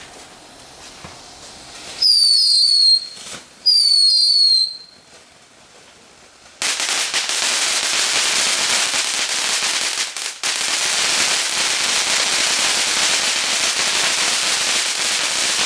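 Cuckoo firework going off: two bursts of paired, falling whistles, each about a second long, then a loud steady hiss of spraying sparks for about nine seconds, with a brief break partway through.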